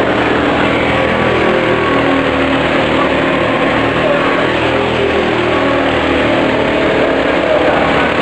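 Go-kart engines running as karts lap the circuit, steady and loud, with the engine note wavering up and down.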